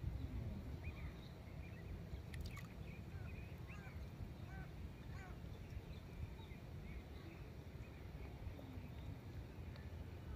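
Scattered short chirping calls of birds in the surrounding wetland over a steady low rumble, with a couple of faint clicks about two and a half seconds in.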